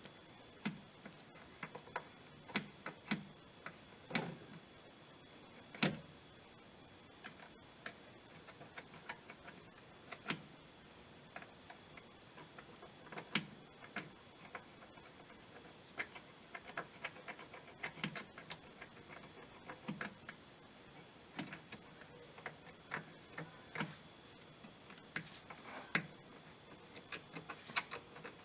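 Irregular light clicks and taps with a few louder knocks, from hand tools and metal parts being handled on a washing machine under repair.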